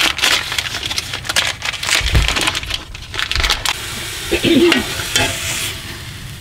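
Ground beef sizzling as it browns in a stockpot on a gas stove, with a metal utensil scraping and knocking against the pot as the meat is broken up.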